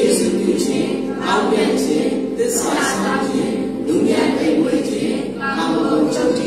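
Many voices of a congregation raised together, with a man's voice leading through the microphone.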